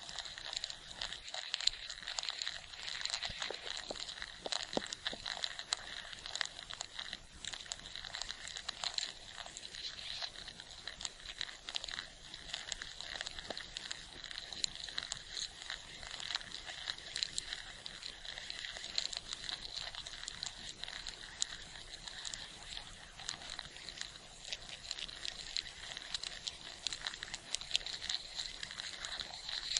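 Ants, close-miked: a dense, continuous fine crackling made of many tiny high clicks, steady throughout with no pauses.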